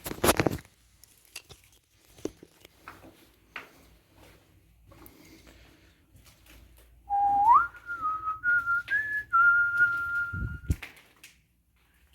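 A person whistling a short run of notes that step upward and then hold one note, starting about seven seconds in. A short, loud noise at the very start and scattered faint clicks.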